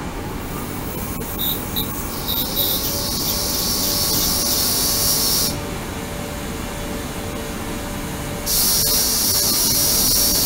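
Ultrasonic cleaning tank running: a loud high hiss from the water switches on about two seconds in after a few short chirps, cuts off suddenly about halfway through, and comes back on near the end, over a steady low hum.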